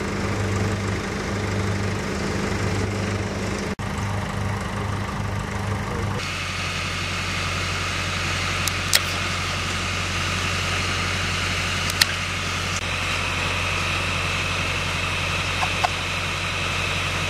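An engine runs steadily with a strong low hum, pulsing at first, and its sound changes abruptly about six seconds in. Over it, pruning shears snip through peeled sticks with a sharp click about nine seconds in and another about twelve seconds in.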